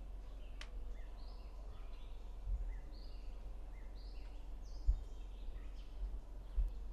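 Birds chirping and twittering in the background in many short, high calls, over a steady low hum. Three soft low thumps come about two and a half, five and six and a half seconds in.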